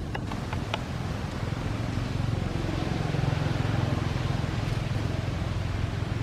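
A low, steady motor vehicle engine hum that grows louder in the middle and eases slightly near the end, with a few faint clicks in the first second.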